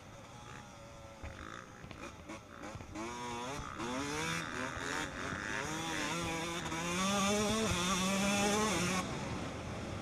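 Yamaha YZ motocross bike's engine pulling hard, its pitch rising again and again as it revs up through the gears, then falling off suddenly about a second before the end as the throttle closes.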